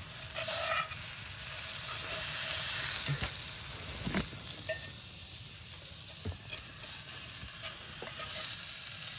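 Pike frying in a cast iron pan: a steady sizzle, with a few sharp knocks against the pan around the middle.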